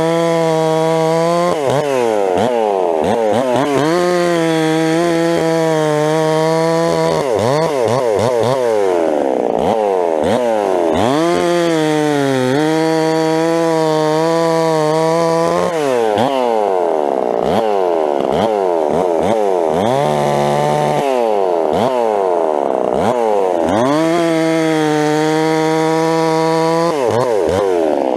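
Ported Stihl MS 360 Pro chainsaw cutting through a log in several cuts. Between cuts the engine pitch rises and falls; during each cut it holds a steady, lower pitch with the chain in the wood.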